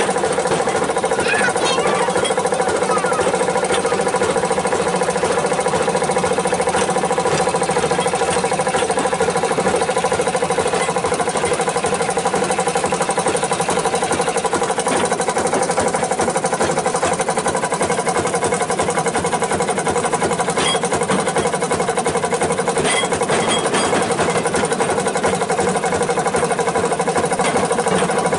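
A rail vehicle's engine running steadily at an even speed, with a few light clicks about two-thirds of the way through.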